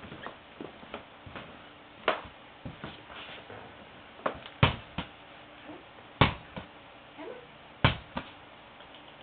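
A small toy ball bouncing and knocking on a hard floor: a string of sharp knocks at irregular intervals with fainter ticks between them.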